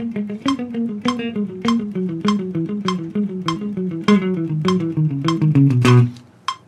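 Clean-toned Les Paul-style electric guitar playing a major scale in fast sixteenth notes, four notes to each click of a metronome at 100 BPM, stepping downward and played without stray string noise. The run ends on a low held note about six seconds in, after which the metronome clicks on alone.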